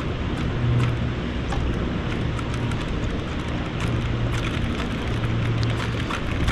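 Creek water running: a steady rush with fine crackling, under a low hum that comes and goes.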